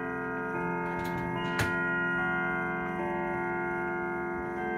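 1981 Howard Miller grandfather clock chiming: a pinned cylinder lifts the hammers, which strike the chimes one note at a time, a few slow notes about a second apart, each ringing on under the next.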